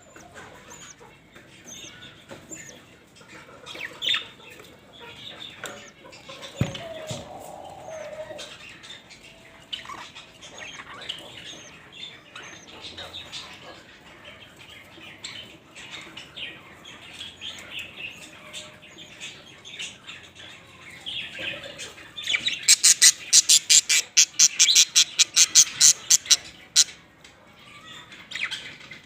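Budgerigars chirping softly at a nest while a chick is fed. About three-quarters of the way in comes a fast, even run of loud, high squeaky calls, about six a second for some four seconds: the rhythmic begging of a budgie chick being fed.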